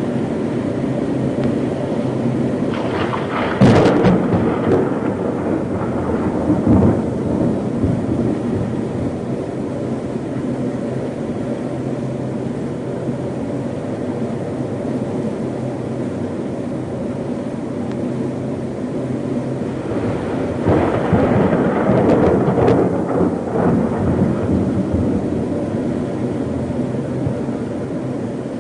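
Storm with a steady roar of wind and rain. Thunder cracks about three and a half seconds in and again near seven seconds, then a longer rumbling swell of thunder about twenty-one to twenty-four seconds in.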